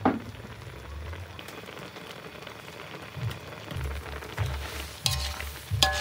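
Chicken simmering in liquid in a metal wok, a steady bubbling hiss, with metal tongs clinking against the wok near the end. A short falling swoosh at the very start, and background music with a low beat.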